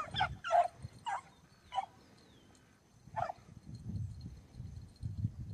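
Hunting beagles barking on a rabbit's trail: about five short barks in the first three and a half seconds, spaced unevenly, then low rustling for the rest.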